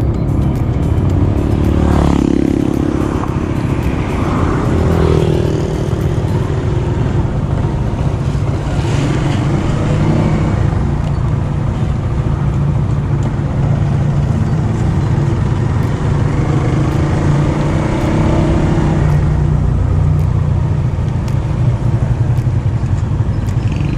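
Honda RS150R's single-cylinder four-stroke engine running under way, its note shifting with throttle changes a few times.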